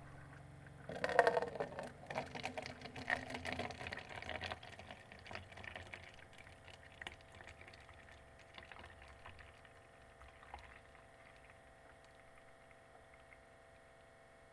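Keurig coffee maker brewing: hot water and air sputter and gurgle through the brewer about a second in, then die away over several seconds into faint drips.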